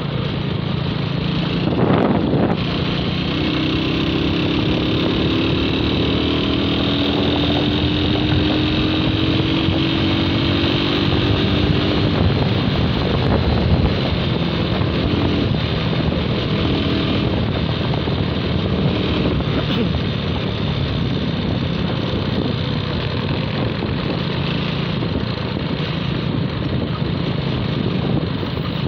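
Motorcycle engine running at road speed under heavy wind noise on the microphone, with a tone that rises slowly between about three and twelve seconds in. A short knock about two seconds in.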